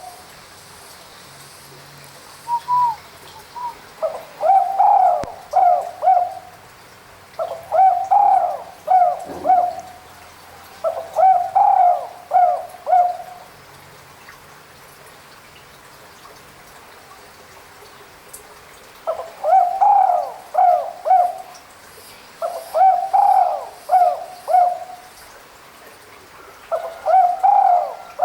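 Spotted dove (tekukur) cooing: six phrases of three or four coos each, a few seconds apart, with a longer pause midway.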